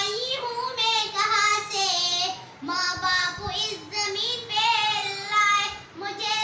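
A girl's single voice singing an Urdu nazm unaccompanied, holding long wavering notes, with short pauses between lines about two and three-quarter seconds in and near the end.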